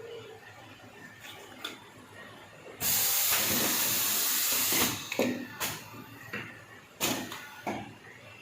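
A loud, steady hiss like released compressed air lasting about two seconds, starting a third of the way in, followed by several sharp mechanical clacks.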